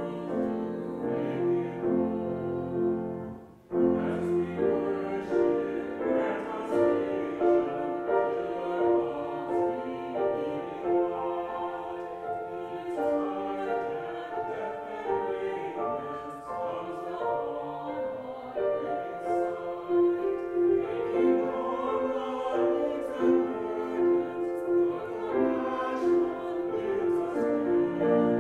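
Grand piano playing a hymn, with a brief break about three and a half seconds in.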